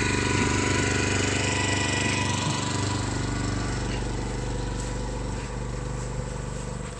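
Small engine running steadily, driving the pump of a high-volume herbicide spray rig; it grows gradually quieter over the last few seconds.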